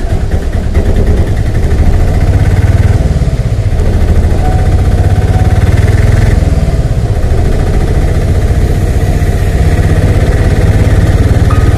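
Vehicle driving along a rain-wet road, heard from aboard: a steady, loud low rumble of engine and road noise with a hiss above it.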